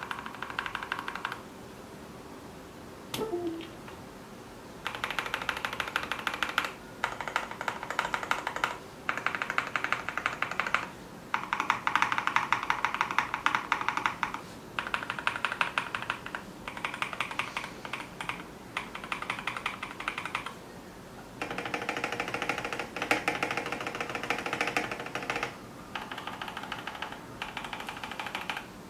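Typing on a KBD75V3 mechanical keyboard fitted with Boba U4T tactile switches, lubed and filmed, with case and plate foam. Fast runs of keystrokes lasting a few seconds each are broken by short pauses.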